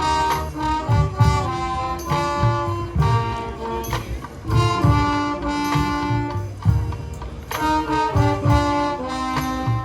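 Marching band playing: brass ensemble holding and changing chords, with bass drum hits beneath.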